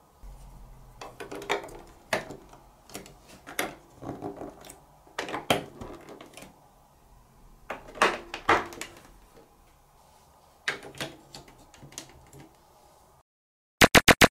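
Large plastic building blocks being handled and pressed onto a plastic baseplate: irregular clicks and knocks of plastic on plastic. Near the end, after a brief dropout, a quick even run of about six sharp clicks.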